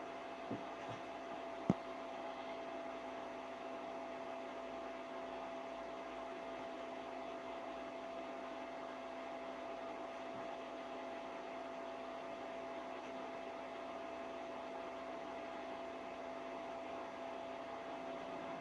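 Steady electrical hum with a background hiss. Two short clicks come in the first two seconds, the second sharper and louder.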